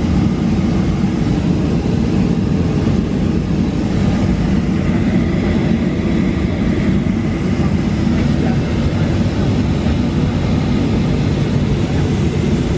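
Airliner cabin noise: a steady low rumble of the jet engines and airframe as the plane moves along the runway, heard from inside the cabin, with a faint high whine in the middle.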